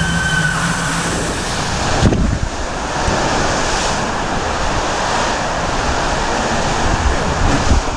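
Water rushing and wind noise on the microphone as a rider slides down an enclosed water slide tube, with a single thump about two seconds in.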